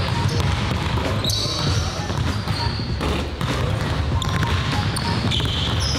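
Basketball being dribbled on a hardwood gym court.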